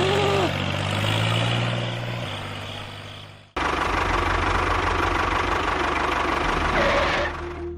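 An engine running steadily, broken off abruptly about halfway through and resuming at once, then dropping away near the end.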